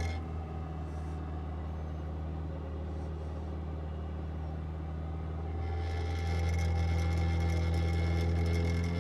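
Peugeot 206 engine idling steadily. About six seconds in, a brighter, scratchy noise joins and the sound grows a little louder.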